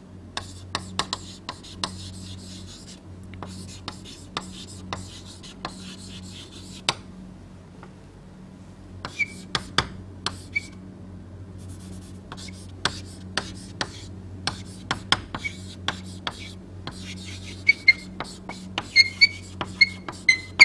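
Handwriting during a lecture: a run of sharp taps and scratches of a pen or chalk on the writing surface, with short squeaks about halfway through and near the end, over a steady low electrical hum.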